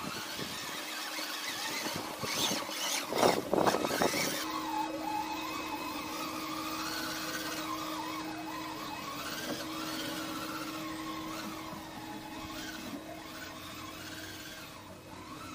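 Radio-controlled toy truck's small electric motor and gears whining over a steady hum, the whine's pitch wandering up and down as the throttle changes. In the first few seconds there is uneven scraping noise with a few louder knocks instead.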